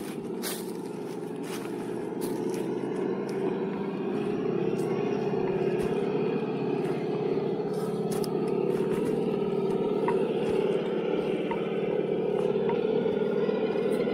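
6x6 Unimog truck driving on the trail, its engine and drivetrain running steadily and slowly getting louder, with small scattered clicks.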